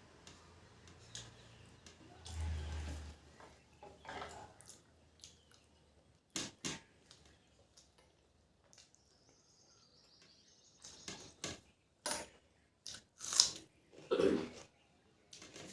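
Person eating rice and curry: scattered wet chewing, smacking and mouth clicks, loudest near the end.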